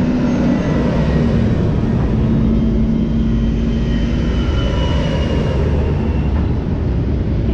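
Heavy multi-axle military trucks driving past close by: a loud, steady engine rumble with a droning note that stops about four and a half seconds in.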